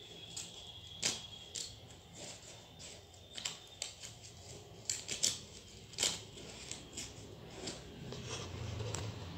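Small handmade paper notebook handled and its pages flipped: irregular sharp clicks and short paper rustles, loudest about a second in and around five to six seconds in.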